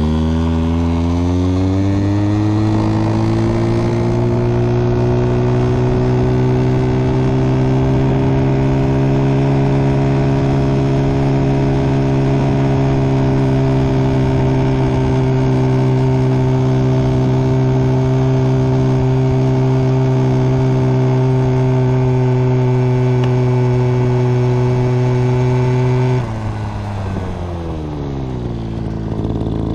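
Small two-stroke engine of a spindle-driven Goped mini bike, run at full throttle on a top-speed run. Its pitch climbs over the first couple of seconds and then holds steady. About 26 seconds in, the throttle comes off and the pitch falls, then it revs up again at the end.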